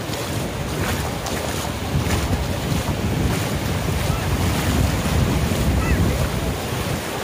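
Wind buffeting the microphone over a steady rush of sea surf, swelling louder from about two seconds in.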